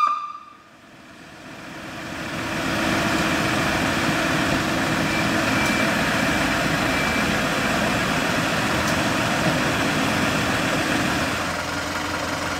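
Vehicle engine running steadily, fading in over the first couple of seconds after a siren cuts off; near the end it changes to a quieter, lower idle hum.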